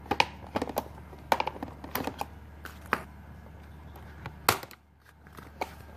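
Scissors snipping and clicking on the thin plastic ties that hold a toy truck in its box: a run of irregular sharp clicks, the loudest about four and a half seconds in.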